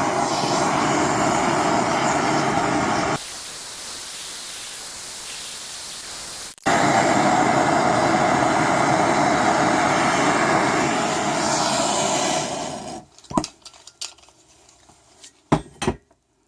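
Handheld gas torch burning with a steady rushing hiss while it heats an aluminium joint to melt the soldering rod into a puddle. For about three seconds in the middle the sound drops to a thinner, higher hiss. It stops near the end, followed by a few sharp clicks.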